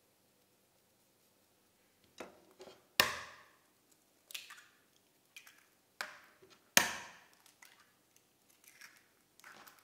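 Two eggs cracked one after the other against the rim of a glass mixing bowl: two sharp cracks with a short ring, about four seconds apart. Between them come small crackles and clicks as the shells are broken open.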